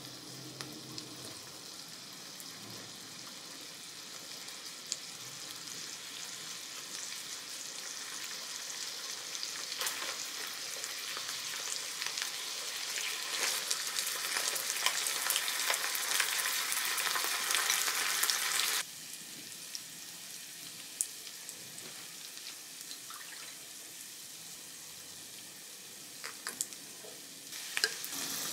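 Yamagata beef steak and rice sizzling on an electric hot plate. The sizzle grows louder through the middle and cuts off suddenly about two-thirds of the way through, with scattered light clicks.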